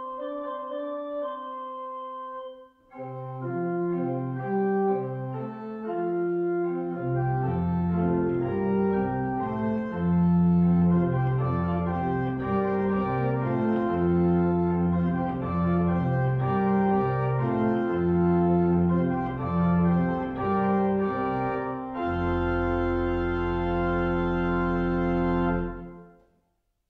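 Organ music: a held chord, then a fuller passage with a moving bass line from about three seconds in, ending on a long held final chord that stops shortly before the end.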